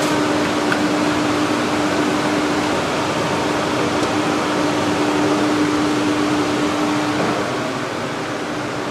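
Commercial gas wok burner running under a wok of boiling soup: a steady rushing noise with a constant hum, easing slightly near the end.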